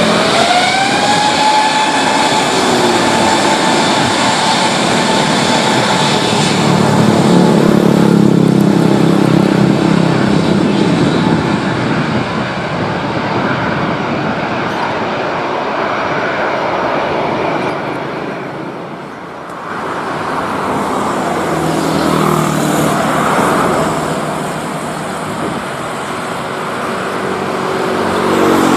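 Jet engines of an Airbus A320-214 (CFM56) on the takeoff roll: a rising whine over the first two seconds settles into a steady jet roar, which dips briefly about two-thirds of the way through.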